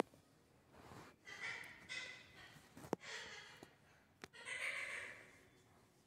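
Soft breathing close to the microphone: several quiet, airy breaths, with a few faint clicks in the middle.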